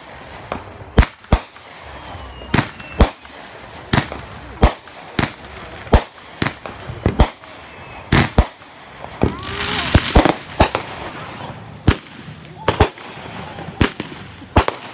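Fireworks going off: a rapid, irregular series of sharp bangs, with a denser cluster of bangs and crackle about ten seconds in.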